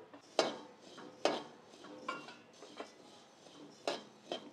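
Metal spatula scraping and clanking against a heavy kadai while coriander seeds are stirred in a dry roast, about six separate strokes roughly a second apart.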